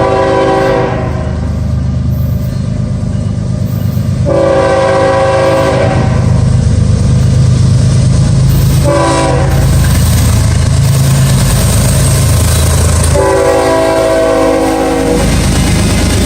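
Diesel freight locomotive's horn blowing a chord in the long, long, short, long pattern of a grade-crossing signal, loud over the steady rumble of the locomotive engines and passing train.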